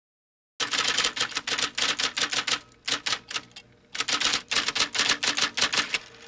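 Typewriter sound effect: a fast run of keystrokes, about six a second, starting about half a second in, easing off for about a second midway, then going on again.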